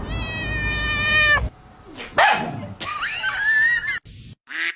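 Domestic cats vocalizing: a long, held yowl breaks off suddenly about a second and a half in. It is followed by a run of meows whose pitch bends up and down, and a short call near the end.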